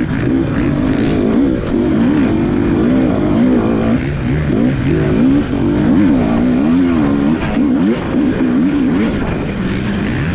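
Several off-road dirt bike engines revving up and easing off over and over, their pitches overlapping and weaving as the bikes race through the course.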